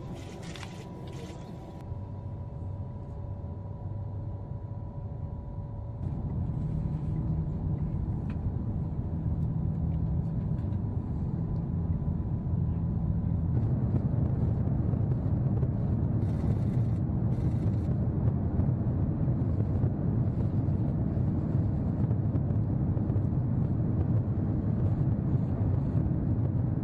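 Low, steady rumble of a vehicle in motion, growing louder about six seconds in, with a faint steady whine in the first few seconds.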